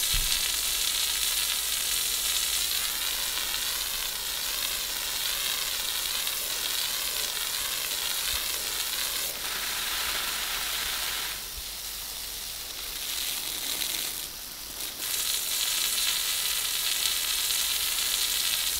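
Water jet from a garden hose spray nozzle hissing steadily as it strikes a rendered wall and splashes. The spray eases off for a few seconds about twelve seconds in, then comes back at full strength.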